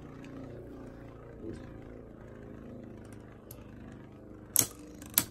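Two Beyblade Burst spinning tops, Poison Hydra Zan and Cho-Z Achilles, whirring steadily on a plastic stadium floor. Near the end come two sharp clacks about half a second apart, as the tops strike each other.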